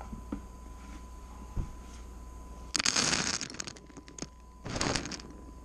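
Dry cat kibble rattling and clattering in a food dish in two bursts, a longer one about halfway through and a shorter one near the end, as the cat noses into and eats the food.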